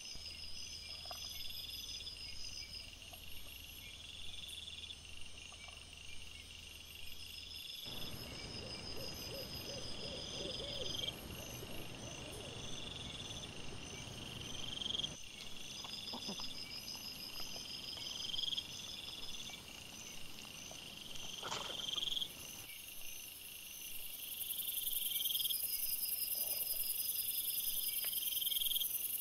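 Night chorus of insects chirping, high and steady, with chirps repeating every second or two, and a few faint knocks and rustles beneath.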